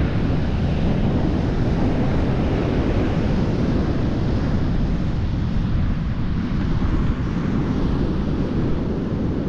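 Strong wind buffeting the microphone over the steady wash of ocean surf, with no motor or voice standing out.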